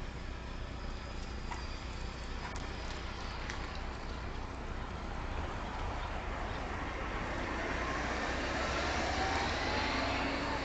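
A car going by on the street, its engine and tyre noise growing louder over the last few seconds, over a steady low hum.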